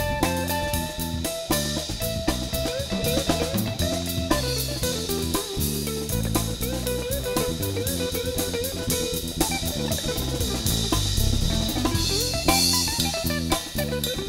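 Instrumental jazz-fusion band playing: a Gibson Les Paul electric guitar carries a bending lead line over electric bass guitar and a drum kit with steady cymbal strokes.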